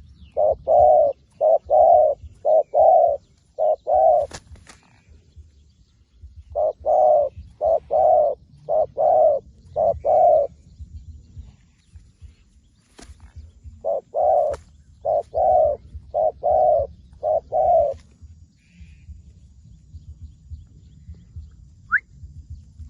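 A dove cooing in three runs of six or seven short, evenly spaced coos, with pauses of a couple of seconds between the runs.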